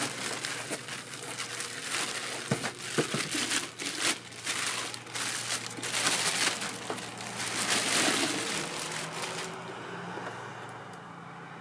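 Kraft packing paper and a plastic bag crinkling and rustling in dense, crackling handfuls as a chemical feeder is unpacked from a cardboard box. About nine and a half seconds in the crinkling stops, leaving a faint steady hum.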